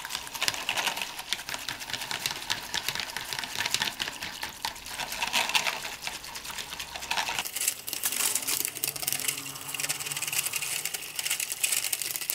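Wire whisk beating hot water in a bowl, the wires clicking rapidly against the bowl's side amid splashing, as gelatine sheets are dissolved.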